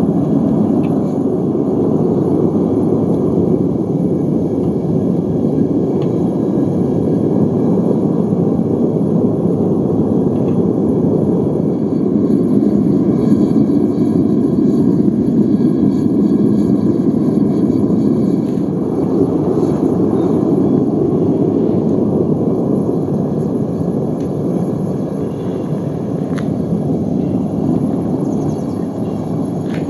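Gas burner of a small foundry furnace running with a steady roar while brass melts in the crucible. A few faint clicks of a steel rod against the crucible come through now and then.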